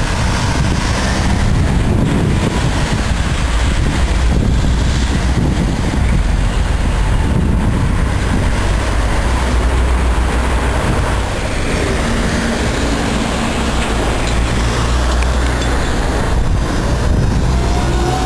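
Street traffic running steadily while a Škoda 14Tr trolleybus approaches. Near the end the trolleybus pulls past close by, and a gliding whine comes in.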